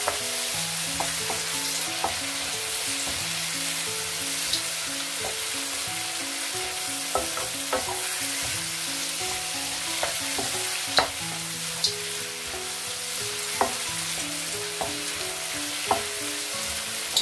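Onion, tomato and turmeric masala sizzling in oil in a wok while a wooden spatula stirs it. There is a steady hiss, with a dozen or so irregular sharp knocks of the spatula against the pan, the loudest about eleven seconds in.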